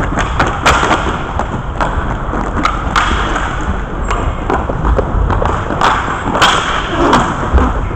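Inline hockey play around the goal: many sharp clacks and knocks of sticks and puck, over a steady rolling rumble of skate wheels on the rink floor.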